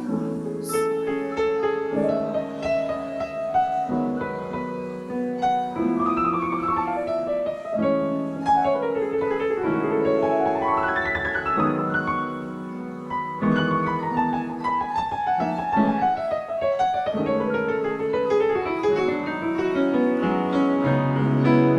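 Piano playing an instrumental interlude of flowing runs and chords that sweep up and down the keyboard.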